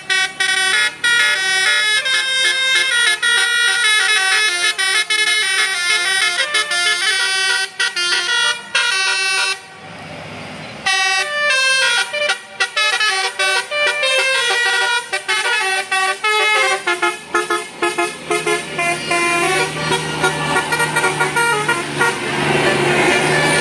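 Basuri 'telolet' multi-tone bus horn playing a fast melody of short stepped notes, with a break of about a second near the middle. A low steady hum joins in over the last few seconds.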